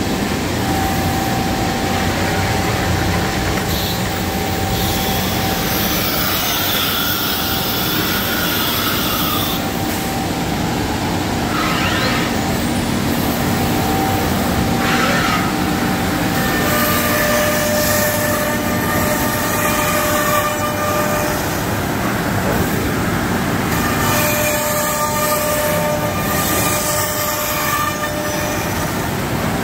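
CNC router running and routing a melamine sheet: a loud, steady machine drone with whining tones that shift pitch several times, and two short rising sweeps about halfway through.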